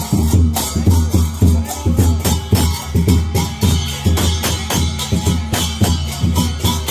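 Music with a steady drum beat and a heavy bass line.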